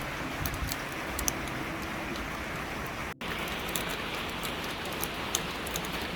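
Rain falling steadily, an even hiss with many sharp drop impacts clicking through it. The sound cuts out for an instant about three seconds in.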